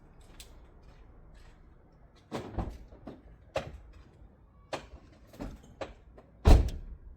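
A series of irregular knocks and clunks, about seven, spread over the last five seconds, with the loudest and deepest one about six and a half seconds in.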